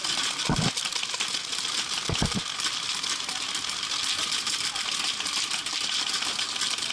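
Many paintball markers firing at once: a dense, steady stream of rapid clicks and pops, with a couple of low thumps about half a second and two seconds in.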